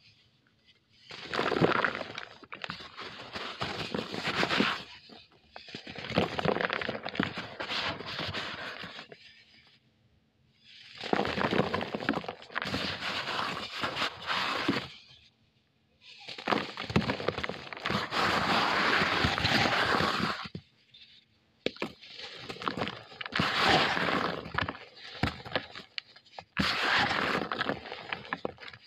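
Cast pure cement chunks being broken and crumbled by hand into powder: gritty crunching and crackling in about six bouts of a few seconds each, with short pauses between.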